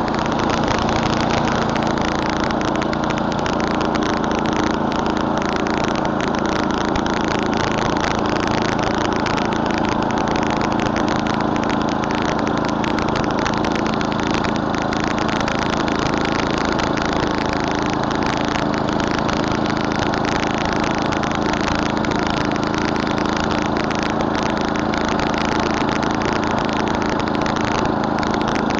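Murray Select snowblower's 11 hp Tecumseh engine running steadily at a constant speed.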